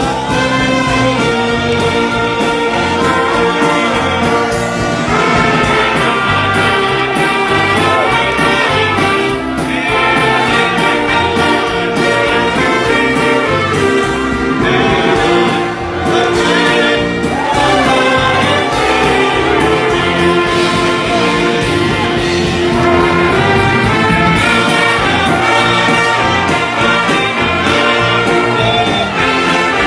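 Live gospel band music with brass, trumpets and trombones, playing a hymn as voices sing along.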